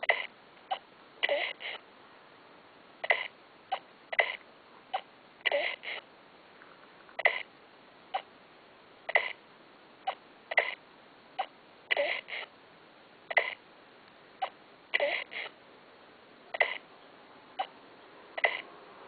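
A baby swallowing milk while bottle-feeding: short gulps, irregular, roughly one or two a second.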